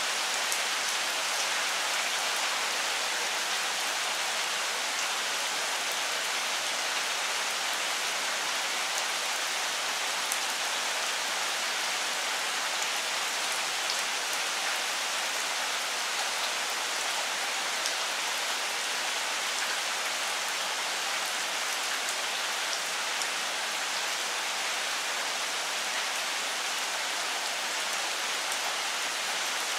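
Steady rain falling on the leaves of a longan tree: an even, unbroken hiss with a few sharper drop taps here and there.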